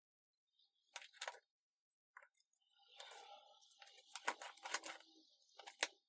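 Faint handling noise of a steel tape measure and a pencil on an MDF board: a couple of light clicks about a second in, then light scraping with several sharp clicks from about three seconds, and one last sharp click near the end.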